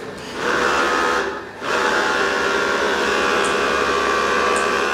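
Several small bristlebots (brush robots) buzzing over a tiled floor, their vibration motors making a steady many-toned buzz that drops away briefly about a second and a half in.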